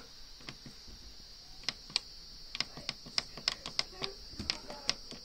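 A Beko washing machine's control panel being worked: about a dozen sharp, irregular clicks, coming quicker from about two seconds in, over a faint steady high-pitched hiss.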